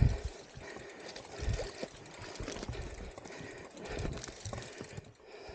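A hiker's heavy breathing and irregular thudding footfalls while clambering up a steep bush track, over a steady rustle.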